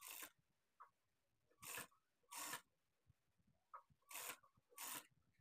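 Faint, brief rustles of fabric being handled and smoothed by hand at the sewing machine, five short brushes with quiet gaps between.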